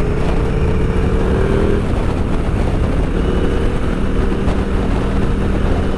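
KTM 890 SMT's parallel-twin engine running through an aftermarket Vandemon titanium exhaust while being ridden at a steady cruise. The pitch eases slightly about two seconds in, then holds steady.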